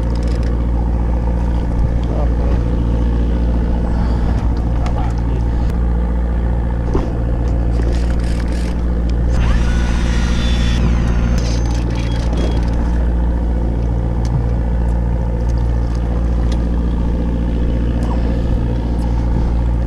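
Boat's engine running steadily with a low hum, with a brief rushing hiss about halfway through.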